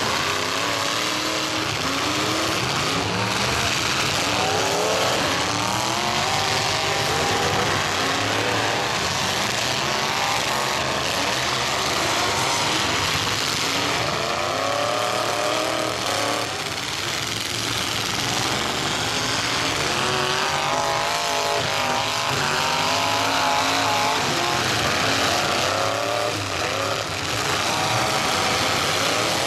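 Several demolition derby cars' engines revving hard together, their pitches rising and falling over and over as the cars accelerate, back up and ram one another.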